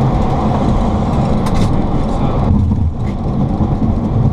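Boeing 737-800 landing rollout heard from inside the cockpit: a loud, steady rumble of the engines and the wheels on the runway as the jet decelerates, thinning slightly about two and a half seconds in.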